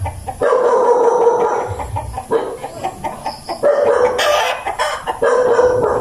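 A rooster crowing: one long crow of about two seconds, then several shorter calls in the second half.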